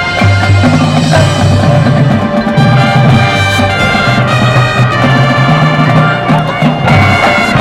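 Loud high school marching band playing: trumpets and trombones over sustained low brass notes, with drums and front-ensemble percussion.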